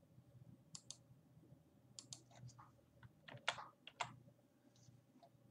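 Faint, scattered computer keyboard taps and mouse clicks, a few at a time, the loudest about three and a half and four seconds in.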